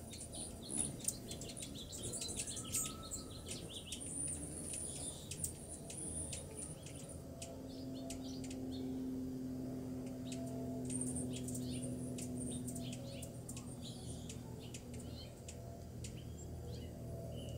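Hummingbirds calling around a cluster of feeders: rapid runs of short, high, squeaky chips and twitters, thickest in the first few seconds and again about two thirds of the way through. A low steady drone swells under them through the middle.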